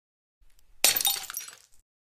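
Glass shattering sound effect: a sudden break a little under a second in, followed by tinkling that dies away within about a second.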